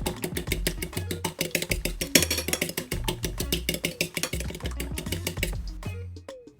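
Background music: an upbeat track with a busy percussive beat over a bass line. Near the end the percussion drops away, leaving a few held notes.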